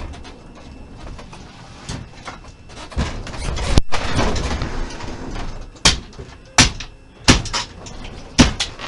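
Four sharp, loud bangs about two-thirds of a second to a second apart, after a couple of seconds of rustling commotion with one hard knock.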